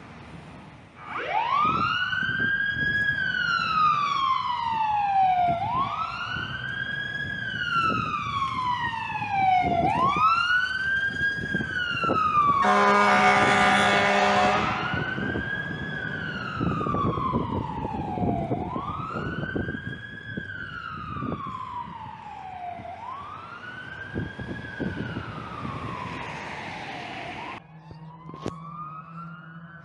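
Fire engine siren wailing in repeated cycles about four seconds long, each rising quickly and then sliding slowly down. About halfway through, a loud horn blast sounds for under two seconds. Near the end the siren changes to a fainter sweep.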